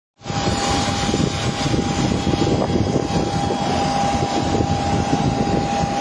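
Jet aircraft engine running steadily: a constant high whine over a loud low rumble.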